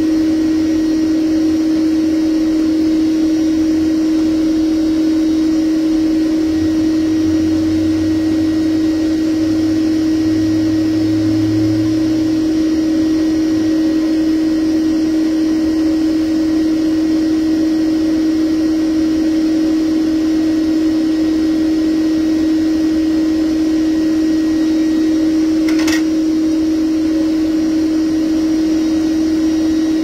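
Bee vacuum motor running with a loud, steady hum at one pitch. One sharp click about three-quarters of the way through.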